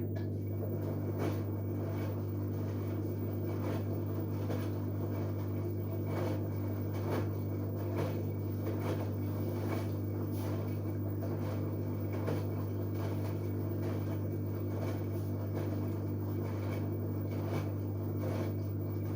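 LG Direct Drive washing machine running with a steady low hum and faint irregular knocks from the drum.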